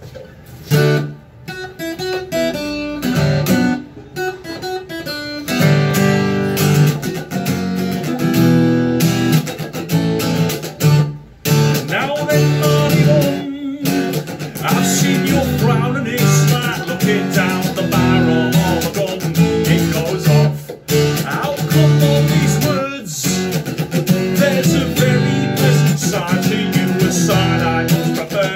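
Steel-string acoustic guitar being strummed, lighter and sparser at first, then filling out into full, steady chord strumming about five seconds in.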